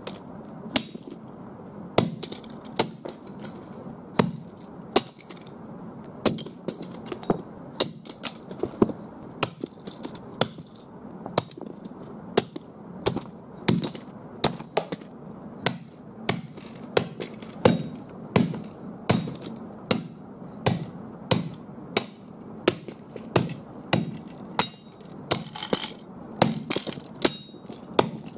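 Hatchet chopping repeatedly into a small plastic-and-metal pull-back toy car: a steady run of sharp strikes, about three every two seconds, as the car breaks apart.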